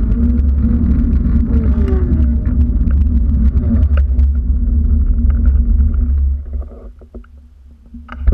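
Wind buffeting an action camera's microphone, a heavy low rumble that dies down for about a second and a half near the end, then comes back suddenly.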